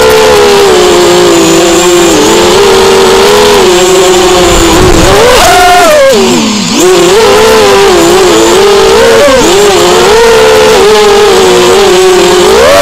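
Brushless motors and propellers of a ZMR250-type racing quadcopter in flight, heard from its onboard camera: a loud whine that rises and falls with the throttle. About six seconds in the pitch drops sharply as the throttle is chopped, then climbs back.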